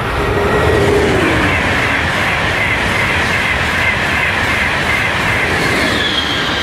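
Italian high-speed electric train passing at speed: a loud, steady rush of wheels and air with a whine that falls slowly in pitch as it goes by, loudest about a second in.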